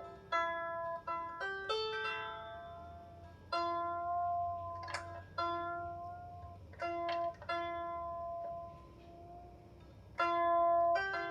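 16-string lyre harp plucked in a slow tune, single notes and pairs of notes ringing out and fading, with a quieter pause of about two seconds before a last note near the end.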